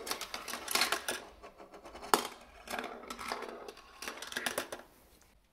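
Marbles rolling and clattering down a GraviTrax plastic marble run: a dense rattle of clicks with one sharp strike about two seconds in. It dies away near the end.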